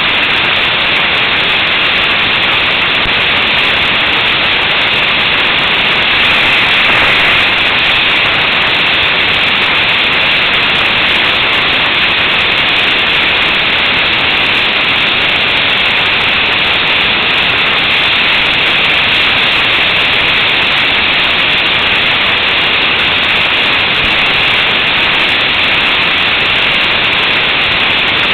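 Steady, loud wind rush over an action camera's microphone on a motorcycle at highway speed, mixed with road noise, swelling slightly about seven seconds in.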